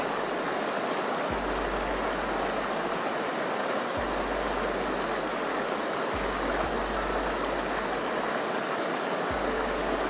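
Shallow rocky river running over stones and small rapids: a steady rush of flowing water.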